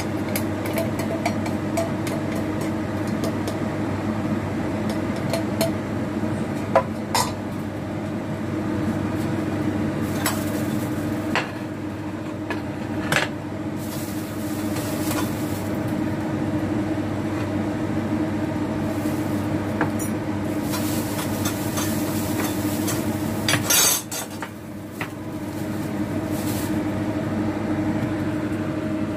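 A steady mechanical kitchen hum, with scattered clinks and knocks of utensils against pots and dishes and a louder clatter near the end.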